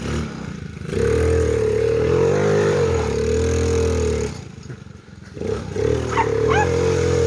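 Small quad bike engine revving as it is ridden through mud, its pitch rising and falling, dropping almost to nothing around five seconds in and then picking up again. A few brief high squeaks about six seconds in.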